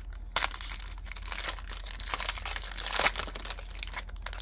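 Foil wrapper of a trading card pack crinkling and crackling as it is torn open by hand, in irregular crackles with louder ones about half a second and three seconds in.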